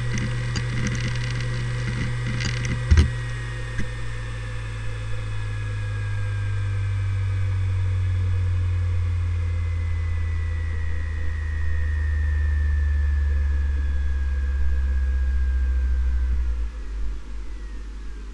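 Seagate Barracuda ES ST3250820NS 7200 rpm hard drive seeking with rapid clicking, then a sharp click about three seconds in as it begins to spin down. Its spindle whine and hum fall slowly in pitch for about thirteen seconds and stop near the end.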